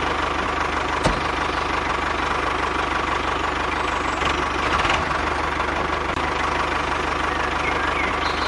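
Small tractor engine idling steadily, with a single sharp click about a second in.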